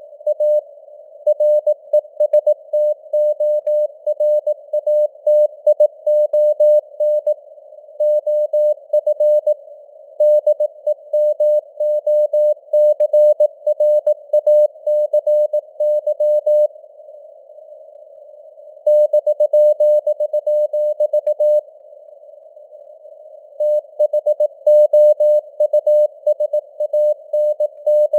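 Morse code news sent at 18 words per minute: a single mid-pitched tone keyed on and off in dots and dashes over a hiss of simulated radio noise. The keying stops twice for about two seconds each, a little past the middle.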